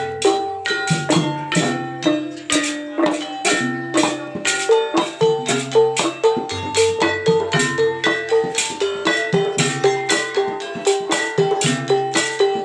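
Javanese gamelan music: struck bronze gong-chimes and metallophones ringing out melodic notes in a steady, fast rhythm over low drum and gong tones.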